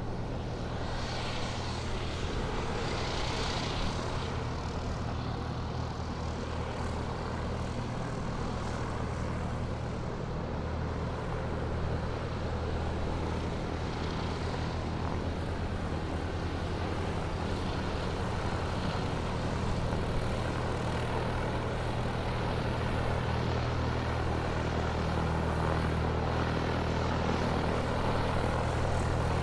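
Airplane engine running steadily as the aircraft taxis, a continuous drone with a low steady hum, growing slowly louder over the stretch.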